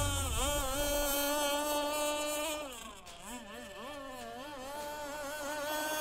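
Radio-controlled racing boat's motor whining at speed, a buzzing pitch that rises and falls with the throttle. About halfway through it drops in level and wavers as the boat eases off, then builds again near the end.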